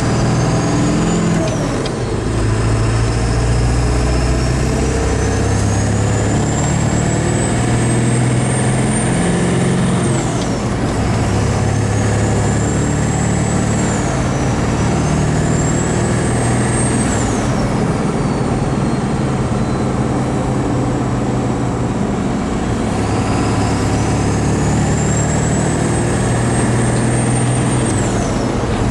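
Ford F-250's 7.3L Power Stroke diesel running through a straight-pipe exhaust, its turbo whining high and loud with the inlet foil deleted. The whine climbs slowly as the turbo spools up, then falls away sharply, about five times, over a steady low engine note.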